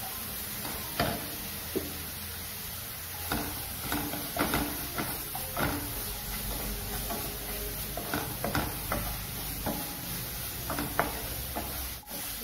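Spatula stirring and scraping sautéing onions and chillies in a hot non-stick frying pan: irregular scraping strokes over a steady sizzle.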